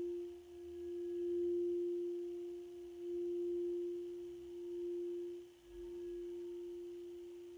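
Frosted crystal singing bowl sung with a mallet at its rim: one steady pure tone that swells and eases every second or two, with short dips about half a second in and near six seconds.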